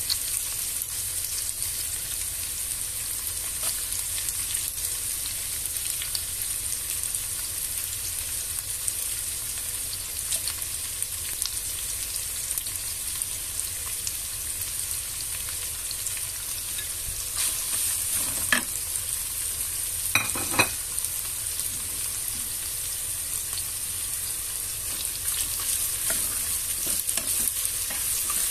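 Strips of cured meat, onion, carrot and bell pepper sizzling steadily in oil in a nonstick wok, with a constant high hiss and light crackling. A few sharp knocks stand out about two-thirds of the way in, and a wooden spatula stirs the vegetables near the end.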